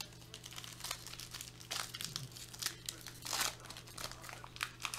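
Foil wrapper of a trading card pack crinkling and tearing as it is worked open by hand: irregular crackles, with louder bursts about two seconds in, midway through and near the end.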